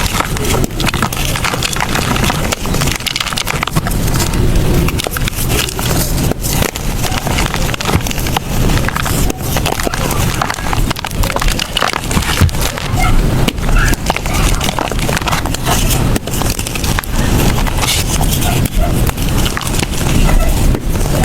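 Blocks of gym chalk being crushed and crumbled by hand, a steady close-up crunching and crackling of brittle chalk breaking into powder.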